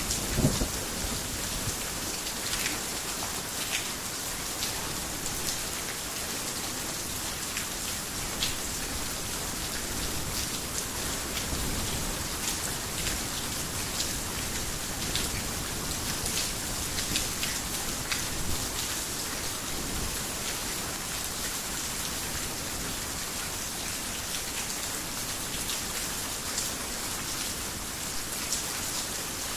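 Heavy rain falling on a roof: a steady hiss with scattered sharp drop ticks. A thunder rumble dies away right at the start.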